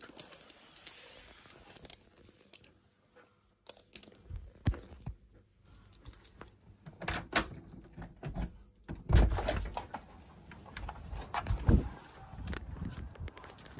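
Irregular metallic jingling and clinking from a dog lead being handled, with knocks and thumps as a front door is opened; the heaviest handling thumps come past the middle and again near the end.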